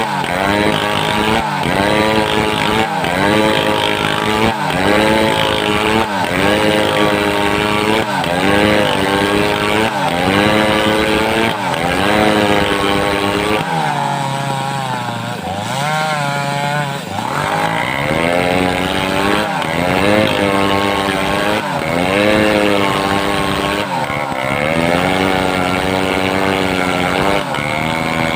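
Homemade two-stroke chainsaw cutting wood, its engine pitch sagging under load and recovering about every one and a half seconds. Around the middle it runs lower for a few seconds, then the rhythmic cutting resumes.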